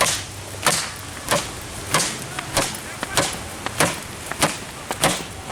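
A belt lashing an empty speaker box over and over, a sharp crack about every 0.6 seconds, nine strikes in all. The belt is not breaking the box.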